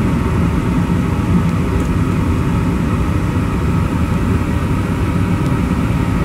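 Gas furnace burners firing just after ignition, together with the draft inducer motor: a steady, even rumble.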